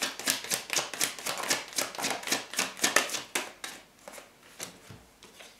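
A deck of tarot cards being shuffled by hand: a quick run of crisp card clicks, about five a second, that slows and fades after about three and a half seconds as cards are drawn and laid onto the table.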